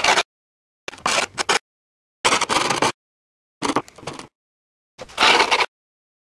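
Hands rubbing and handling sandpaper-like skateboard grip tape on a deck, heard as five short scratchy bursts about a second and a half apart, each cut off abruptly with dead silence between.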